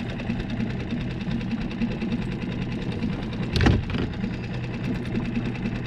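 Small boat outboard motor running steadily at low trolling speed, with one sharp knock a little past halfway.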